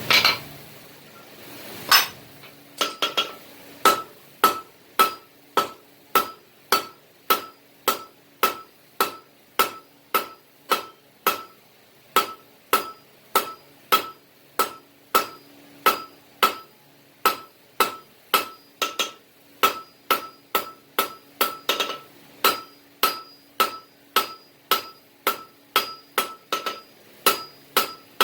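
Hammer striking steel on an anvil in a steady rhythm, a little under two blows a second, each blow followed by a bright metallic ring.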